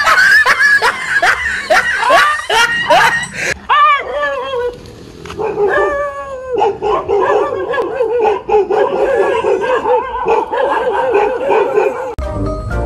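A frightened dog yelping: quick, repeated high yelps for about three and a half seconds, then, after a short pause, a long wavering howling whine. Music comes in near the end.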